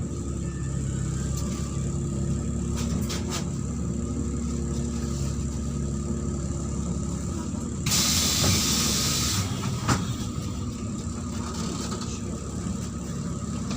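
Inside a Neman city bus: the engine's steady low drone, with a burst of compressed-air hiss from the bus's pneumatics lasting about a second and a half past the middle, followed by a sharp click.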